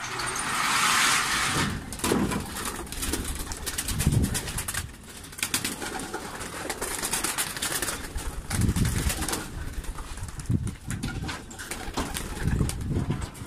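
Homing pigeons cooing, a low swelling call about five times, with sharp wing claps and flapping as birds take off. A rushing, noisy burst in the first second or so.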